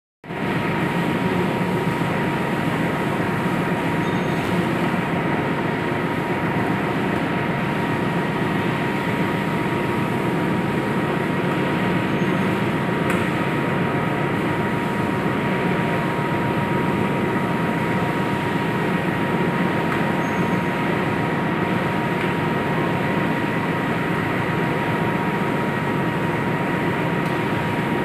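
Chicken meat slicing machine running steadily as it carries chicken pieces on its conveyor belt through the cutting blades: a continuous mechanical rumble with a steady high whine.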